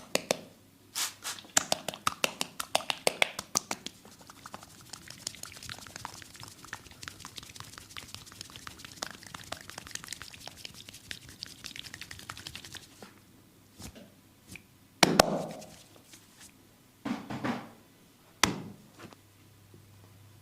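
Hands massaging skin: a quick run of sharp pats in the first few seconds, then several seconds of steady rubbing with a fine crackle, then three louder slaps spaced out near the end.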